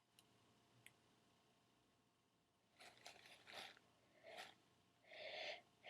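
Near silence, then a few faint, short breathy gasps that grow a little louder toward the end: the build-up of breath before a sneeze.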